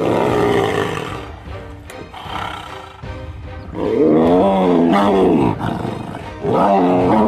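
Tigers roaring as they grapple, with two long, loud roars that rise and fall in pitch: one about four seconds in, the next about six and a half seconds in. Background music plays under them.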